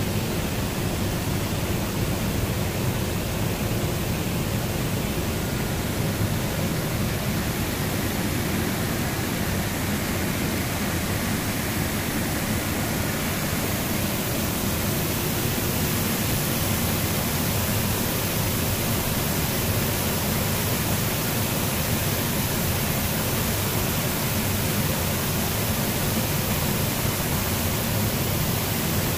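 Steady rushing noise of an electroplating shop, from air agitation bubbling through the plating baths and the shop's blowers, growing a little brighter in the second half.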